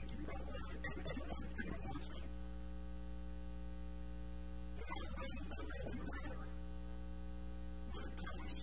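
Steady electrical mains hum, a buzz made of many stacked steady tones. Three short stretches of fainter, irregular sound come through it: one at the start, one about five seconds in, and one near the end.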